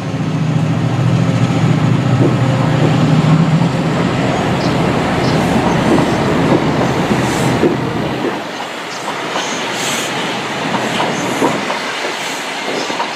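Chiltern Railways Class 68 diesel locomotive and its coaches passing at close range. A steady low engine drone runs for about the first eight seconds. After that, the rattle and clatter of the coach wheels takes over, with light wheel squeals near the end.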